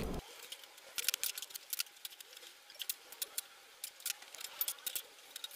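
Light, irregular metal clicks and taps as a steel shelf beam's rivets are worked into the keyhole slots of a boltless rack's angle-iron upright.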